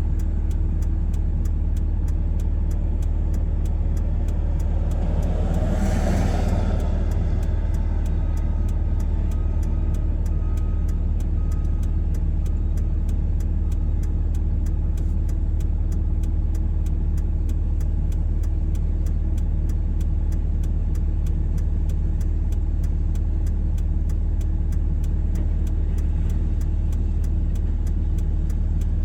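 Truck engine running steadily, heard from inside the cab as a low rumble, with the even ticking of the hazard flashers. About six seconds in, a brief rush of noise swells and fades.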